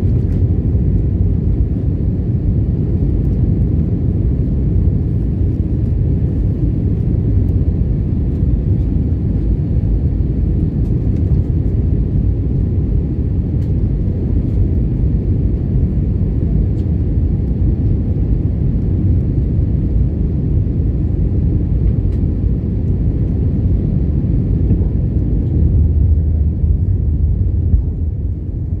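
Steady low rumble of jet airliner cabin noise, the engines and airflow heard from a window seat, dipping briefly near the end.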